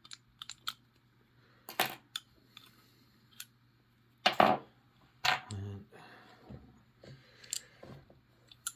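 Lever lock picks and the steel body of an ERA 5-lever padlock being handled: scattered light metal clicks and taps, with two louder clunks about four and five seconds in.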